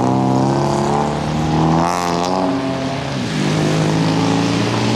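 Cars driving past one after another on wet pavement: engines running with the hiss of tyres through standing water. One engine note drops in pitch about three seconds in.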